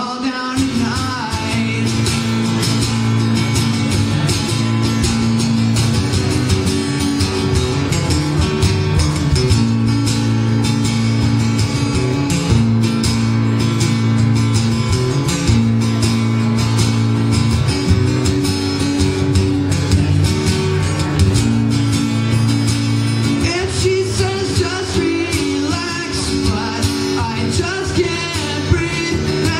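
Teenage boy singing into a microphone while strumming an acoustic guitar. His voice is heard near the start and again over the last several seconds, with the guitar strumming on its own in between.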